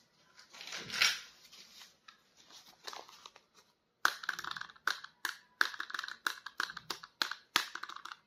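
Plastic toy packaging being handled: a crinkly rustle about a second in, then a fast run of sharp crackles and clicks from about halfway on.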